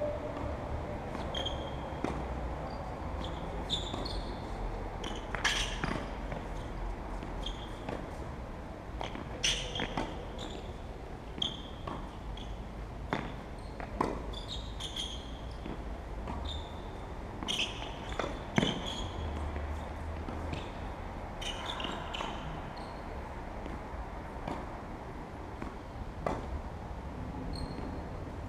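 Tennis ball struck by rackets and bouncing on the court during play: irregular sharp knocks a second or more apart, the loudest about two-thirds of the way in.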